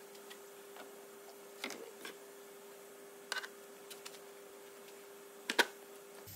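A few short plastic clicks and knocks as a car's plastic coolant expansion tank is handled and pulled out of the engine bay, the loudest a sharp knock near the end. A faint steady hum runs underneath.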